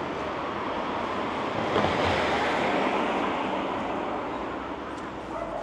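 A road vehicle driving past: its tyre and engine noise swells to a peak about two seconds in, then slowly fades.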